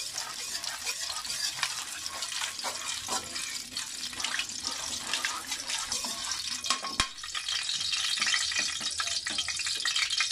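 Hot cooking oil sizzling and crackling in an aluminium wok while a metal ladle stirs through it. The sizzle grows a little louder in the second half, and there is one sharp knock about seven seconds in.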